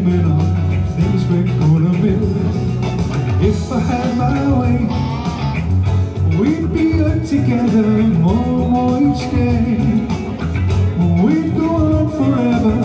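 Live amplified pop song: a man singing the melody over electric guitar and a steady bass line, through a PA.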